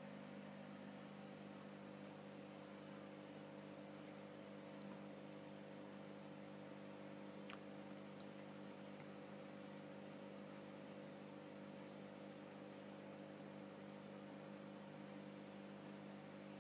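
Faint, steady electrical hum from aquarium equipment, such as the tank's filter pump, with a light hiss. A single faint click comes about seven and a half seconds in.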